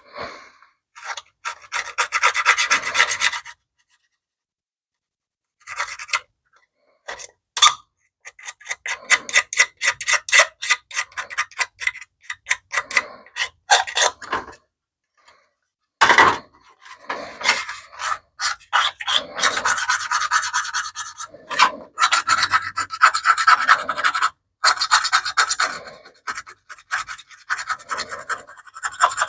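Metal scraper blade scraping caked grime off a BMW E30 motor-mount heat shield, in runs of quick strokes with a few short pauses.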